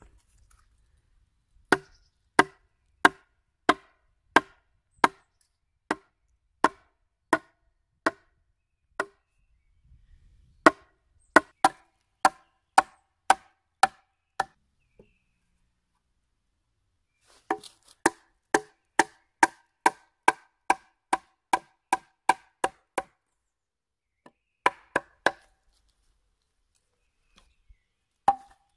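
Wood being struck hard: runs of sharp, ringing knocks, about one and a half a second, the last run faster at about two and a half a second, as when driving a wooden dowel into a log joint.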